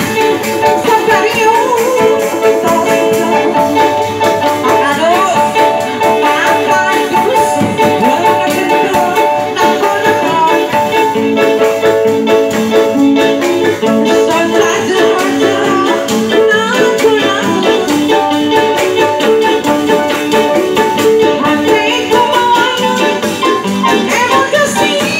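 Loud live kuda renggong accompaniment music: drums and rattling percussion under steady sustained melody notes, playing without a break.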